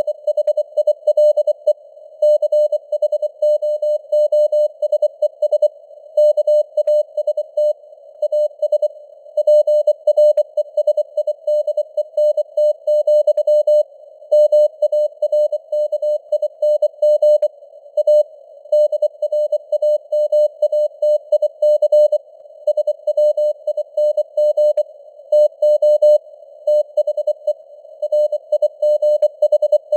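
Morse code at 24 words per minute: one steady tone keyed in dots and dashes, sent as a CW signal through a narrow band of simulated receiver hiss.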